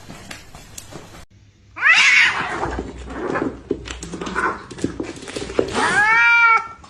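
Domestic cat meowing: a long, loud meow about two seconds in, quieter rustling and small sounds, then another drawn-out meow near the end.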